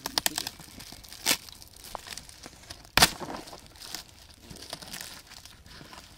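Cardboard carton being torn open and crumpled by hand: a series of sharp rips and crackles, the loudest about three seconds in.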